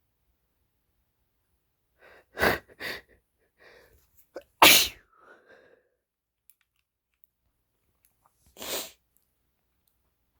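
A man sneezing in exaggerated, induced sneezes: two quick sneezes about two seconds in, the loudest a couple of seconds later, and one more near the end, with faint breaths between.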